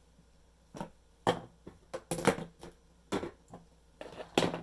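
Fidget toys and plastic slime containers being set down and pushed together on a table: a run of irregular short knocks and clatters, with the loudest about halfway through and near the end.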